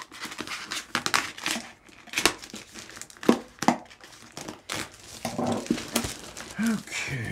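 Plastic bag being slit with a knife and pulled apart: crinkling and tearing plastic, with a few sharp clicks.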